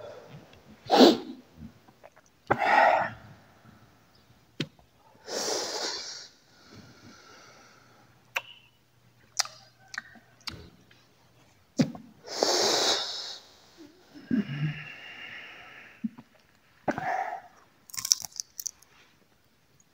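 Close-miked cigarette smoking and eating: a series of breathy drags and long hissing exhales of smoke, with scattered short clicks and crunches from the mouth chewing dry fruit.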